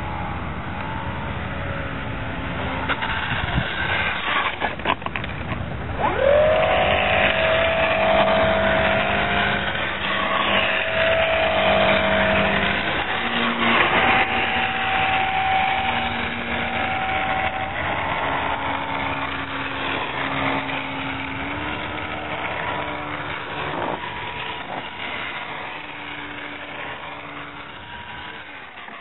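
Small electric motor and propeller of a foam RC biplane running, a whine over a rough rush of air that rises sharply about six seconds in and then holds and shifts in pitch several times as the throttle changes, fading near the end.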